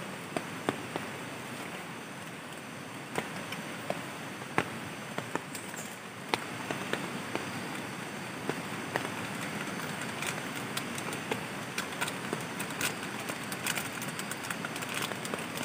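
Portable butane-canister stove burning with a steady hiss under an aluminium mess tin. Scattered light clicks and rustles come as instant cereal powder is shaken in from a sachet; they grow more frequent in the second half.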